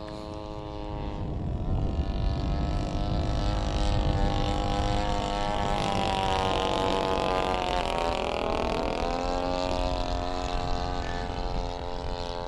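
Propeller engine of a radio-controlled scale Hawker Hurricane running steadily in flight. It grows louder as the plane approaches, and its pitch drops sharply about eight seconds in as it passes overhead.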